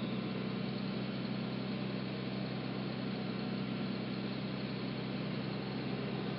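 A vehicle engine idling with a steady low hum, no revving or change.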